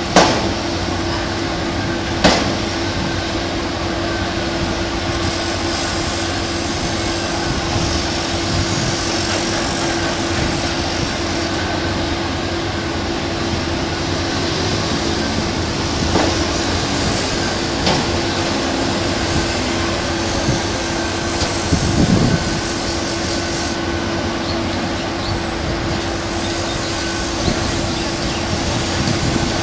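Heavy construction machinery running: the steady diesel din of rotary piling rigs and an excavator, with a steady hum and a few sharp knocks.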